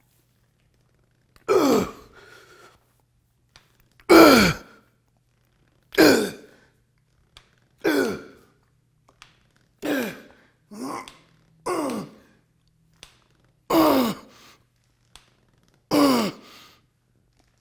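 A man's forceful sighing exhalations, about nine of them roughly two seconds apart, each falling in pitch: effort breaths on each rep of bicep curls against a heavy resistance-band bar.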